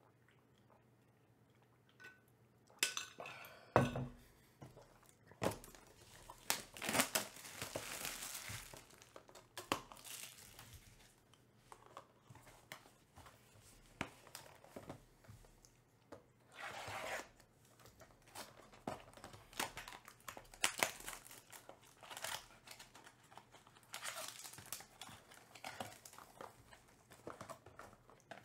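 Plastic wrap being torn and crinkled off a Topps Museum Collection trading card box, with a single heavier knock just under four seconds in. Scattered crinkling and cardboard rustling follow as the box is opened and a card pack is pulled from it.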